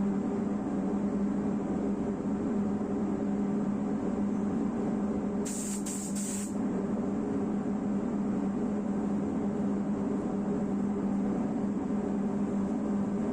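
Steady machine hum in a body shop, with three short hissing pulses of spray-gun air about five and a half seconds in.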